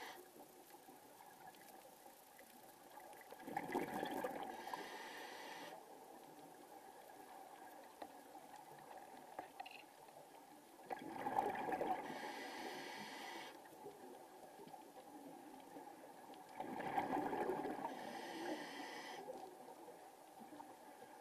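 Scuba diver breathing through a regulator underwater: three breath cycles, each a gurgling rush of exhaled bubbles followed by the hiss of an inhalation.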